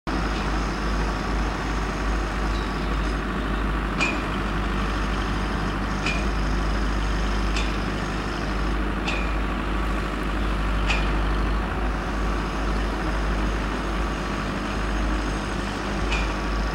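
Indian Railways WAG9 electric locomotive approaching at the head of a freight train, a steady rumble and hiss. A few sharp clicks sound a second or two apart.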